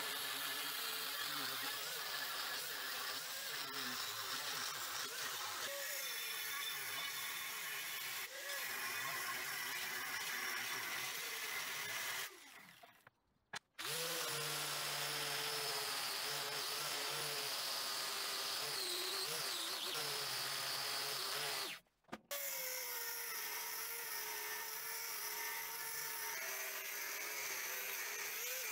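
Angle grinder with a thin cut-off disc cutting through 10 mm steel plate: a steady motor whine under a gritty hiss of the disc on steel, dipping and wavering slightly as the cut is worked. The sound breaks off abruptly twice, once about twelve seconds in and once about twenty-two seconds in.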